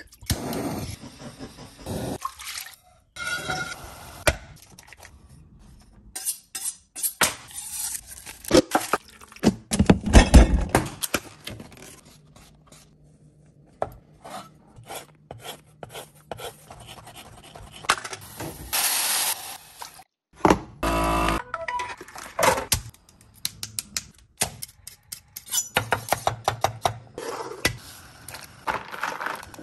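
A run of close-up kitchen cooking sounds: liquid poured from a glass bottle into a stainless steel pot, a knife cutting on a wooden cutting board, and salt sprinkled into a pot of boiling water. Many short knocks and clicks run through it.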